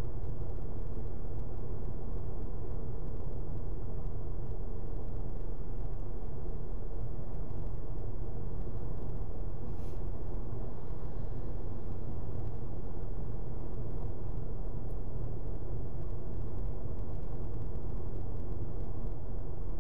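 Steady road and engine rumble inside the cabin of a vehicle cruising at highway speed.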